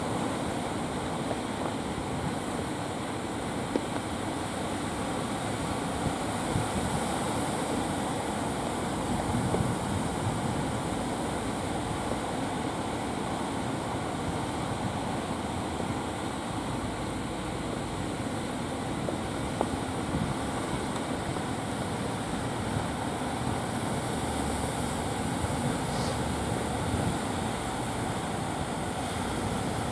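Steady noise of surf washing onto the beach and wind on the microphone, under the drone of a motorised outrigger fishing boat heading in.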